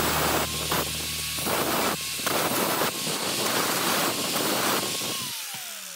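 Hand-held angle grinder grinding the end of a flat metal bar. The grinding hiss comes in repeated passes over a steady motor whine. About five seconds in, the grinder is switched off and the whine falls in pitch as the disc spins down.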